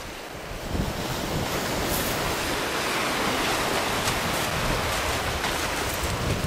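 Ocean waves washing steadily, with some wind buffeting the microphone; the wash swells about a second in and then holds.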